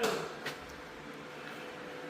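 Quiet room tone with a faint steady hum and a single small click about half a second in.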